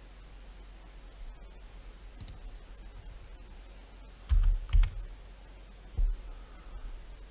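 A few clicks of a computer mouse and keyboard over a faint steady background. The loudest moments are two dull thumps with clicks a little past four seconds in, and another near six seconds.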